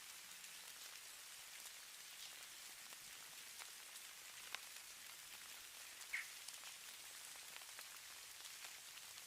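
Falling snow: a faint, steady high hiss with scattered light ticks of flakes landing. A single brief high chirp stands out about six seconds in.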